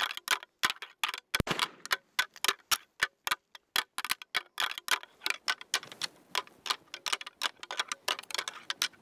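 Deer-rattling antlers clicking and clacking together in quick, irregular strokes, several a second, the rattling used to imitate two bucks fighting.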